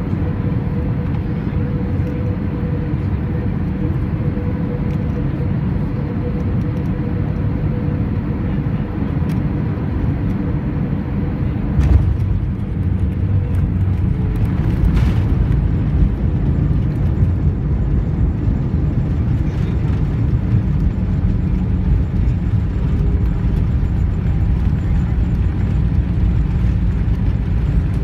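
Airbus A320 cabin noise during landing: a steady drone of the engines and airflow. A little under halfway through comes a jolt as the wheels touch down on the runway. After it runs a louder, rougher rumble of the airliner rolling and decelerating on the runway.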